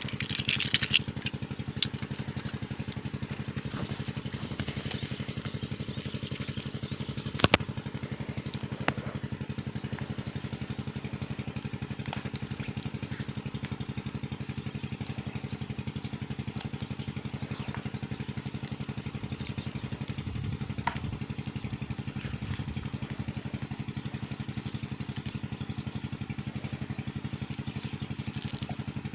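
A small engine running steadily at an even idle, with a few sharp clicks over it, the loudest about seven and a half seconds in.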